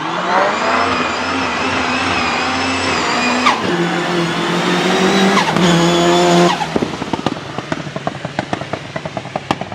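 Nissan 200SX S13 turbo engine revving hard, climbing in the first second and holding high with a couple of shifts in pitch. About seven seconds in the throttle lifts sharply, and a rapid, uneven fluttering chatter from the turbo follows to the end.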